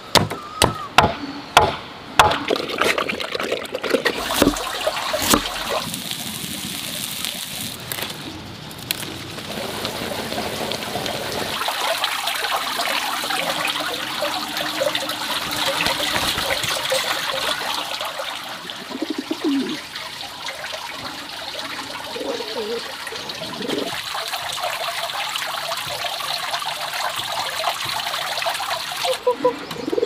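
A few sharp chops of a cleaver into wood on a stump block in the first two seconds, then steady splashing water for most of the rest, from pigeons bathing in a water basin.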